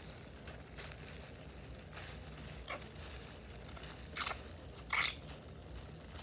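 Plastic hair-dye packaging being handled: crinkling and rustling, with a few sharp clicks spread through.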